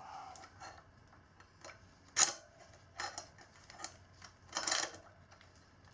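Metal clicks and clinks of a motorcycle drive chain and its master link being handled, scattered and irregular. A sharp clink about two seconds in is the loudest, and a short rattle comes near the end.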